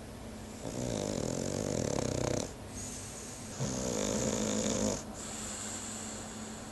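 French bulldog snoring in its sleep: two long snores, each lasting about a second and a half to two seconds, with a pause of about a second between them.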